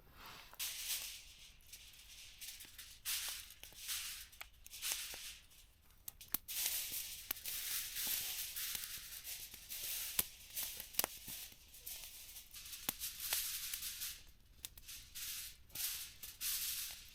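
Aluminium foil crinkling and rustling in irregular bursts as it is handled, with scattered sharp clicks.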